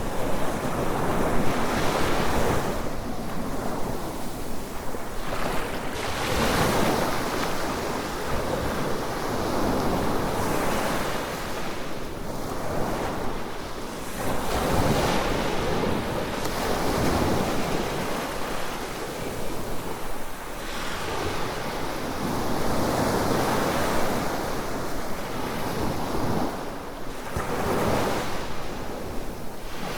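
Waves breaking and washing up the beach, swelling and falling every few seconds, with wind.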